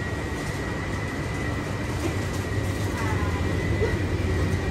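Steady low rumble of shop background noise, with a thin, steady high whine throughout and faint voices about three seconds in.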